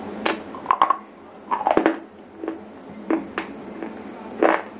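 Shele stone being bitten and chewed right at a lapel microphone: a string of sharp, dry crunches, with a quick run of them about a second and a half in and the loudest crunch near the end.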